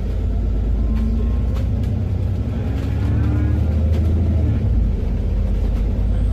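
Alexander Dennis Enviro400MMC double-decker bus heard from inside while under way: a loud, heavy low drive drone, with faint whining tones that rise in pitch about three seconds in. The bus is known to make a strange noise when accelerating that the uploader cannot identify.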